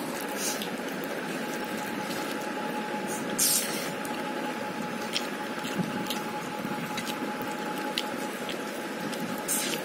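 Wet eating sounds of a person eating rice and curry by hand: chewing and smacking, and fingers squishing rice on a plate. A few short smacks or clicks, the loudest about three and a half seconds in, sit over a steady hiss with a faint steady whine.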